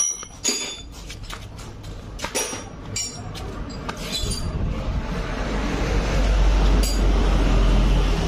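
Metal hand tools clinking, several sharp clinks with a brief ring in the first few seconds. A low rumbling noise then swells and is the loudest sound near the end.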